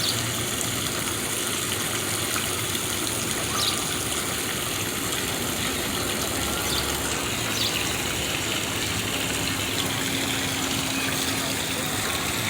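Steady rush of running water, spread evenly from low to high pitch, with a few faint splashy ticks.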